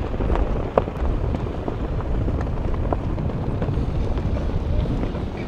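Wind buffeting the microphone: a loud, gusty low rumble that starts abruptly and keeps fluttering unevenly.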